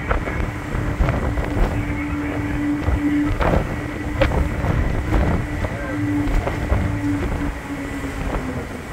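MV Saaremaa 1 ferry's machinery giving a steady hum that fades in and out, over a low rumble of wind buffeting the microphone. A few short knocks come in the middle.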